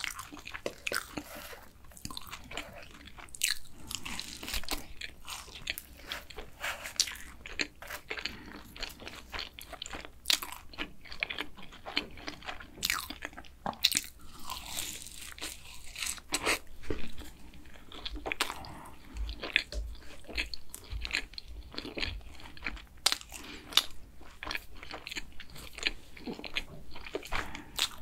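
Close-miked biting and chewing of a glazed cronut: the flaky fried pastry crunches and crackles in a quick, irregular run of small sharp crunches.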